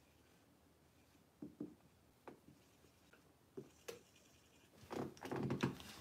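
A few faint, separate knocks and taps in a quiet room, then a louder stretch of rough handling noise near the end.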